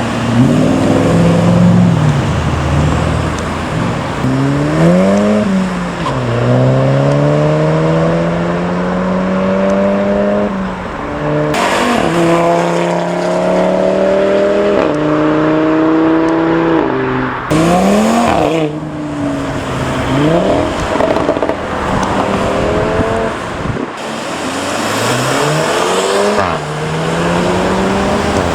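Cars accelerating hard away from a roundabout. The engine pitch climbs and falls back at each upshift, several gear changes in all, with a passing rush of tyre and road noise twice.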